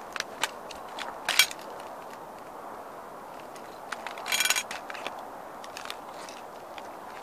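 Sneaker soles shifting on loose gravel with scattered small clicks, and a plastic model Ferrari toy car being pressed underfoot. Two louder crackling bursts come from the car under the shoe's weight: a short one about a second in and a longer, creaking one about four seconds in.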